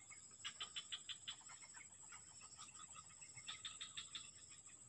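A bird calling faintly in two quick runs of short repeated notes, about seven a second, one near the start and one a little past the middle, over a steady high hiss.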